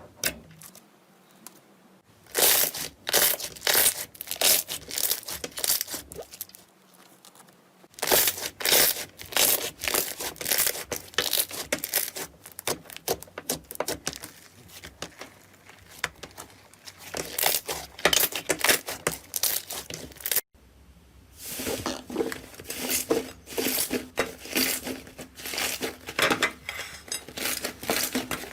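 Slime being squeezed and worked by hand, giving dense runs of crackling and popping in several bursts, with an abrupt break about twenty seconds in.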